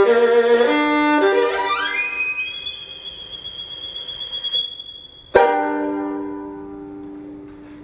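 Solo violin playing a few held notes, then a rapid rising run up to a thin, very high held note, cut off about five seconds in by one sudden loud final chord that rings and fades away.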